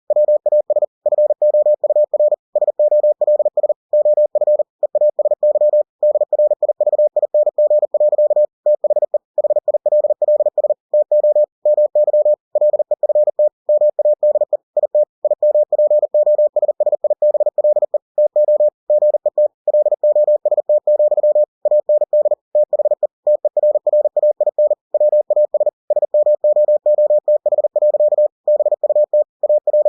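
Computer-generated Morse code (CW) from ebook2cw: a single tone at one steady pitch keyed on and off rapidly into dots and dashes at 40 words per minute, sending the text of a book.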